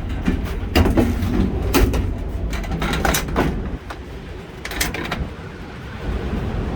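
Strong gale wind buffeting the microphone as a steady low rumble, with several sharp knocks and clatters over the first five seconds.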